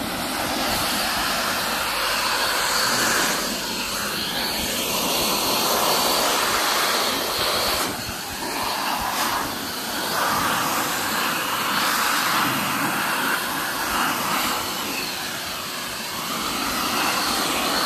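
Self-service car-wash air dryer blowing a powerful stream of air through its hand-held nozzle onto a wet electric scooter: a steady rush of air that swells and eases as the nozzle is moved around.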